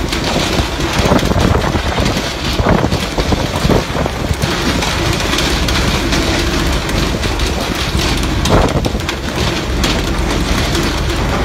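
Steady rushing hiss of water spraying from a fishing boat's hull and washing on the sea, over a low engine rumble, with a few knocks about a third of the way in and again near three quarters.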